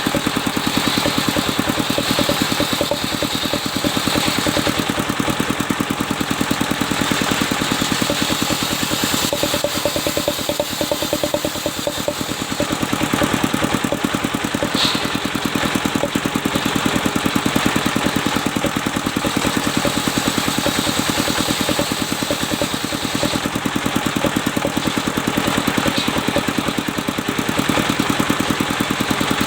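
Engine-driven circular sawmill running steadily, its engine beating with a fast even pulse and a constant pitch throughout.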